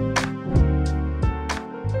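Background music of plucked string notes, a new note struck about every half second over held bass notes.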